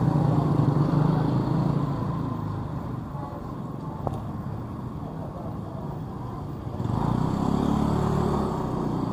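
Small motorcycle engines passing along a street. Engine noise is loud at first and eases off, with a single sharp click about four seconds in, then a motorbike rides close past about seven seconds in.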